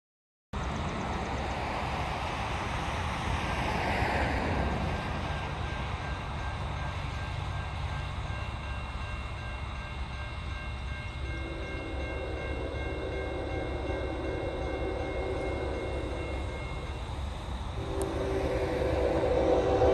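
Approaching freight train's locomotive horn sounding a long chord about halfway through, then again louder near the end, over a steady low rumble. A grade-crossing bell rings in a high, even pulse.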